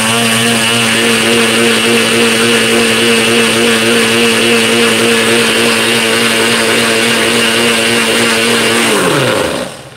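NutriBullet blender motor running at a steady full speed, blending herbs and water into a green liquid, then winding down with a falling pitch about nine seconds in as the cup is let go.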